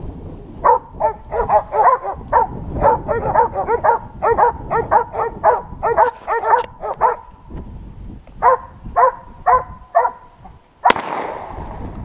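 Hunting dogs barking over and over, about two to three barks a second, a pack on a wild boar. The barking breaks off briefly, resumes for a few barks and stops. Near the end there is a single sharp crack followed by a rushing noise.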